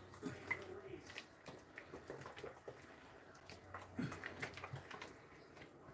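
Spoon stirring a wet ricotta cheese and egg mixture in a stainless steel mixing bowl: faint wet squishing with light scattered clicks of the spoon against the metal.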